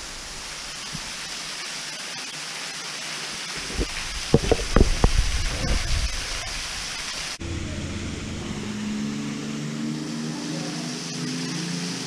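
Steady rushing hiss of a tall waterfall pouring into a rock pool, with a few brief thumps near the middle. About seven seconds in, soft background music comes in over the water sound.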